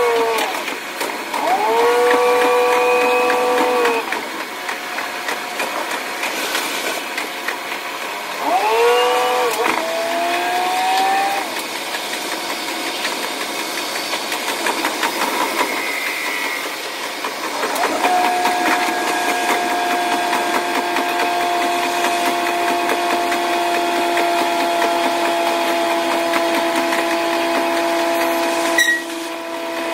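KiHa 185 series diesel railcar's engine and drive, sped up sixfold so they sound high-pitched. Three times in the first eleven seconds the pitch swells up and then drops away as the power is opened and shut off. From about halfway it holds a steady tone that sags slowly, with a sharp click about a second before the end.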